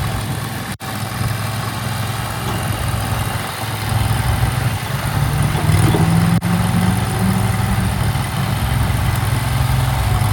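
Air-cooled 23 HP gasoline engine of an ATS Power ATS-T460 mini track skid steer running steadily, its pitch rising as it revs up about halfway through before settling back. The sound cuts out for an instant twice.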